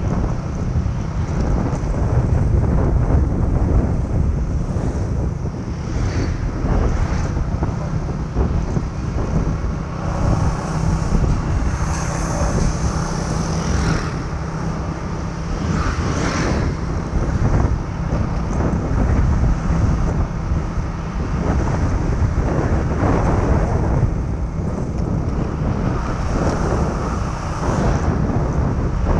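Wind buffeting the microphone over the steady running of a motor scooter's engine while riding.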